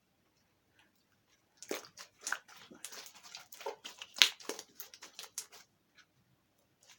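Slime being squeezed and kneaded by hand, a quick run of sticky clicks and crackling pops as air pockets burst, starting nearly two seconds in and stopping about a second before the end.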